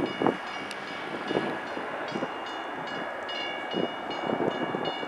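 Boeing 737 jet engines at takeoff power as the airliner climbs away after liftoff: a steady rushing roar with rough crackle and a high, steady whine.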